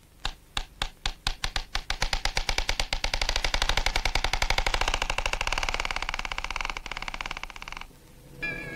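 Film projector starting up: spaced clicks that speed up over the first few seconds into a fast, steady clatter, which stops abruptly near the end. String music begins just after it.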